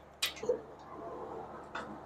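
A few light metallic clicks as a socket on a cheater bar is handled and fitted onto the next nut of the strut's upper mount bolts: two sharp clicks close together about a quarter and half a second in, and a fainter one near the end.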